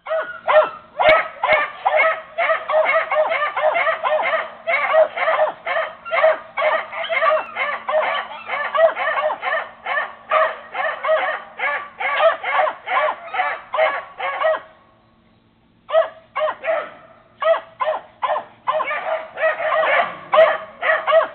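Several beagles barking, rapid and overlapping, a few barks a second, falling silent for about a second about two-thirds of the way in.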